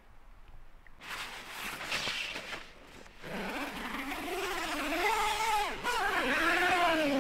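Tent door zipper being pulled along the curved nylon door: a scratchy rasp about a second in, then a buzzing tone that rises and falls in pitch as the pull speeds up and slows, dropping away near the end.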